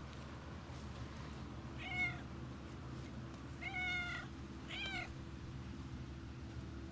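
Domestic cat meowing three times, the middle call the longest, begging as food is held out to it by hand.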